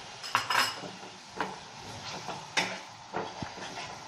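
Metal spatula scraping and knocking against a steel kadai while curd is stirred into the onion-spice paste, about four separate strokes.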